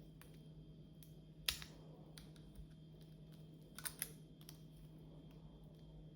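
Plastic Lego pieces clicking and tapping as a part is pressed into place: one sharp click about a second and a half in, a quick pair near four seconds, and a few faint taps between.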